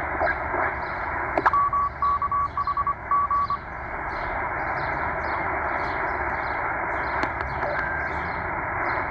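Tecsun H-501x shortwave receiver in upper sideband hissing as it is tuned down through the 20-metre band. About a second and a half in, a Morse code (CW) signal is keyed for about two seconds as a string of beeps, then only the band hiss remains. Birds chirp faintly in the background.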